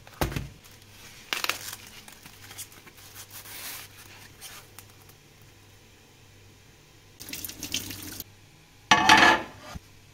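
Packaging being handled as an avocado is unwrapped: plastic cling film crinkling and a foam net rustling in short bursts, with a low bump at the start and the loudest rustle about nine seconds in.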